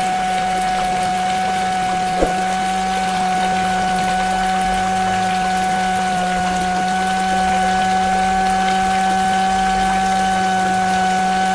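Small electric water pump of a DIY model running with a steady whine and water flowing. A single sharp click comes about two seconds in.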